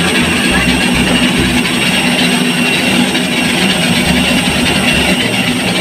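Jet airliner turbine noise on the apron: a loud, steady rush with high whistling tones over a low hum.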